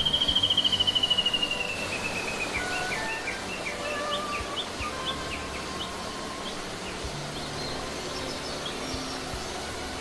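A loud, rapidly pulsed trilling call falls slowly in pitch and stops about two and a half seconds in, followed by scattered short bird chirps. Underneath, a rocky mountain stream runs steadily over a small cascade.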